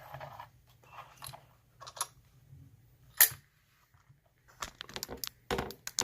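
Metal clicks and knocks as a Yale 840 series padlock is handled and clamped in a vise, with one louder clack about three seconds in and a quick run of clicks near the end.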